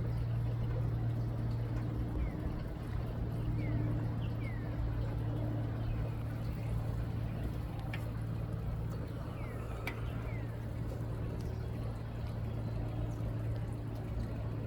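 A steady low hum runs throughout, with a few short, high, falling bird chirps scattered over it.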